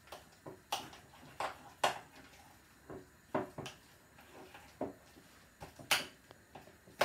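Hands squeezing and mashing a wet mixture of boiled elephant foot yam and gram flour in a glass bowl: short squelching clicks at irregular intervals, about one or two a second.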